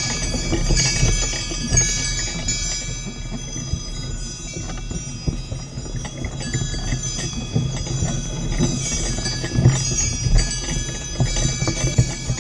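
Sleigh bells jingling continuously as the Shetland pony pulls the sled through snow, over irregular low thuds.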